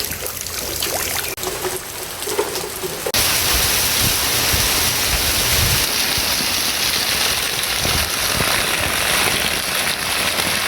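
Heavy rain pouring down: a steady dense hiss of falling water that jumps louder about three seconds in.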